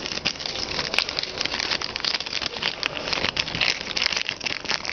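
Foil trading-card pack wrapper crinkling and crackling as it is handled and opened by hand, a dense run of small crackles.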